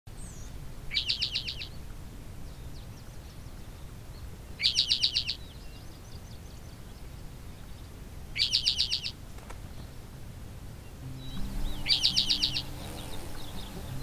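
A songbird singing the same short, rapid trill four times, about every four seconds. Faint music comes in near the end.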